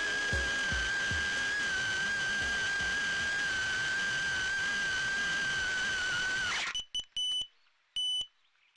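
High, steady whine of a 2-inch FPV quadcopter's motors and props, wavering slightly. About seven seconds in it dips and cuts off as the motors spool down, and short electronic beeps follow, repeating a little under once a second.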